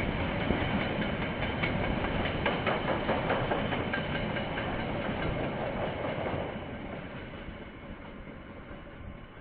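KiwiRail train rolling past, its wheels rumbling with a scatter of clacks over the rail joints. About two thirds of the way in the sound begins to fade steadily as the train moves away.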